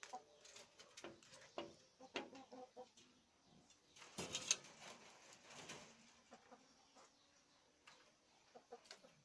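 Chickens clucking in short calls, with a louder, harsher stretch about four seconds in.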